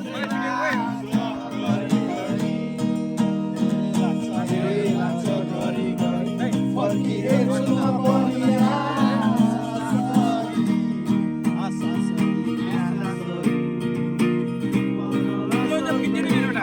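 Acoustic guitar strumming chords while a voice sings a Nepali song.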